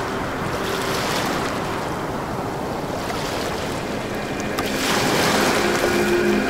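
Ambient soundtrack of a rushing, surf-like wash of noise under a soft held music drone; both swell louder about five seconds in.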